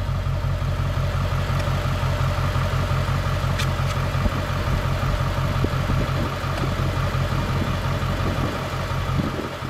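Pickup truck's engine idling steadily, heard from inside the cab.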